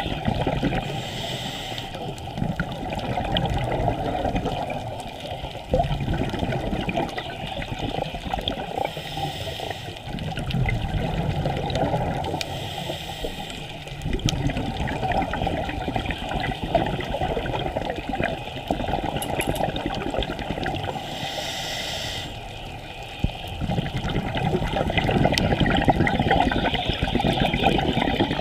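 Scuba diver breathing through a regulator underwater: an uneven bubbling rumble of exhaled bubbles, with a short hiss of inhalation every several seconds.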